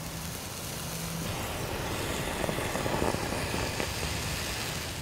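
Small fire of potassium permanganate and sugar catching in a tinder bundle: a steady hiss of flame with faint crackles, growing slightly louder.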